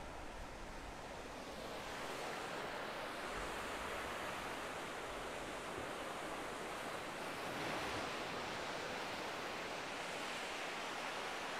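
Surf on a sandy beach: the steady hiss and wash of small waves breaking and running up the shore, growing louder about two seconds in and swelling again around eight seconds.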